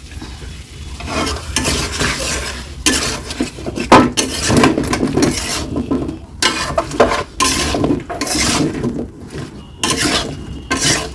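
Long metal spatula scraping and clattering against a metal karahi as chicken and pumpkin chunks are stirred and browned in spices, with some sizzling under it. The loudest clatter comes about four seconds in.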